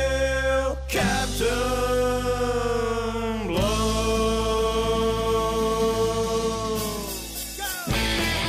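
Rock song playing: a singer holds three long notes, the last one longest and dipping at its end, then the band comes in with guitars near the end.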